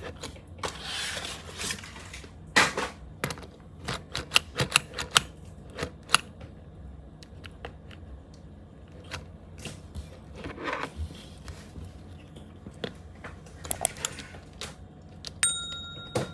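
Irregular clicks, taps and short rustles of a plastic toy and its packaging being handled and unboxed, with a brief steady electronic tone near the end.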